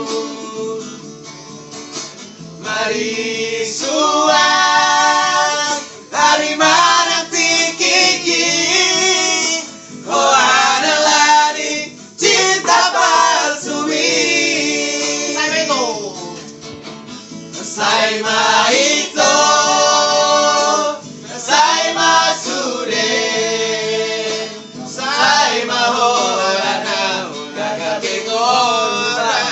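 Men singing a song together, accompanied by an acoustic guitar.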